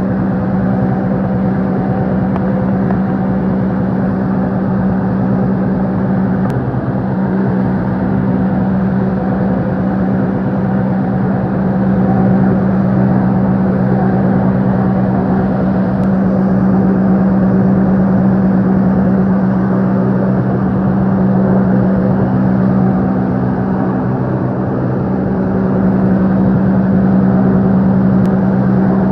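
Motorboat engine running steadily at constant speed, a continuous hum over rushing noise, swelling slightly louder a few times.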